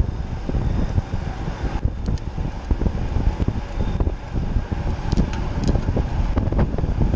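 Wind buffeting the microphone of a camera on a mountain bike ridden at racing speed, a steady low rumble.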